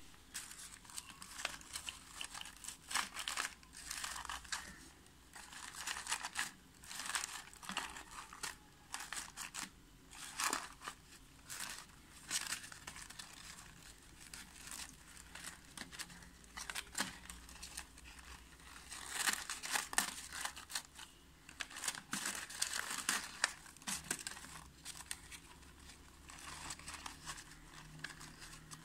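Paper rustling and crinkling in irregular bursts as it is folded and handled by hand.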